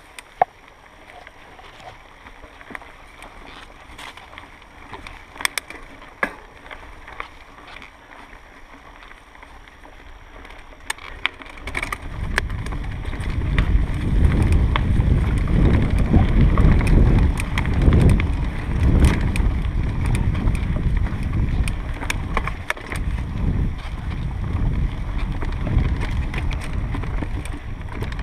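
Mountain bike riding down dirt singletrack: tyres on leaves and dirt with scattered sharp clicks and rattles from the bike. About twelve seconds in, as speed picks up, a loud low rumble of wind buffeting the microphone and trail noise takes over.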